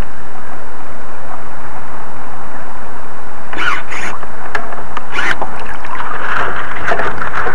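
Water rushing and splashing against the hull of a Victor Models Blackhawk 32 RC sailboat, picked up loud and distorted by the small onboard camera's microphone. Several short splashes come in the second half, and the rushing thickens near the end.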